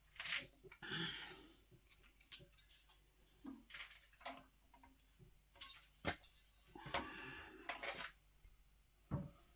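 Faint, irregular clinks, taps and brief scrapes of small metal items being handled.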